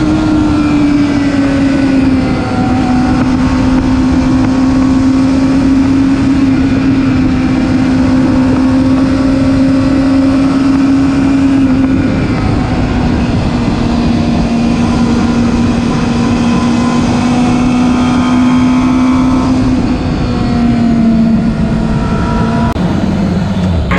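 Sport motorcycle engine running at a steady cruise, heard from the rider's helmet. Its pitch steps down a few times, around two seconds in, near the middle and twice near the end, under a steady rush of wind.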